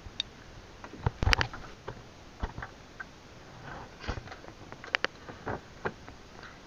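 Scattered light clicks and knocks over a faint steady hiss, with a small cluster of them about a second in.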